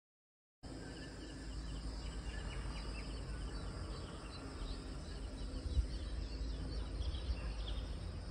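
Outdoor ambience of birds chirping over a steady low rumble, starting abruptly about half a second in after silence.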